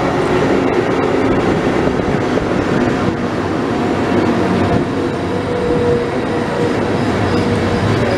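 Frecciabianca train of an E.414 electric locomotive and intercity coaches rolling along the platform: a steady, loud rumble of steel wheels on the rails as the coaches pass close by.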